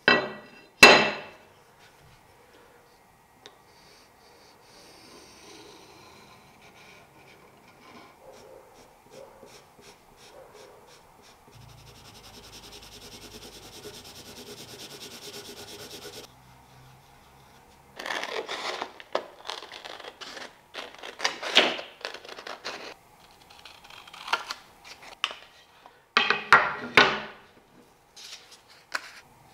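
Pencil scratching on paper in strokes while an outline is traced and drawn, with paper and the blade shifted on the bench. Two sharp sounds come right at the start, and the loudest clusters of strokes fall in the second half.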